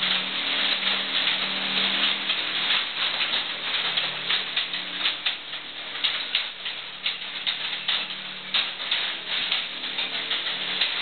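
Small work vehicle rolling through an irrigation tunnel: a dense, irregular crackle and patter of its tyres over the rough tunnel floor, with a faint low motor hum underneath.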